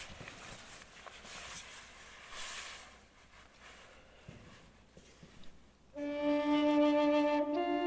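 Aspen-wood flute in the key of D starting to play about six seconds in: a low held note that steps up to a higher one near the end. Before it there is only a faint breathy hiss.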